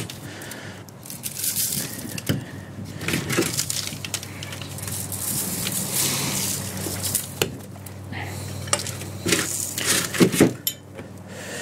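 Handling noise of seasoning a rotisserie chicken: a seasoning shaker being shaken over the bird, rustling against the foil-lined tray, and the metal spit with its toothed end wheels clinking as it is lifted, with the sharpest clinks about ten seconds in.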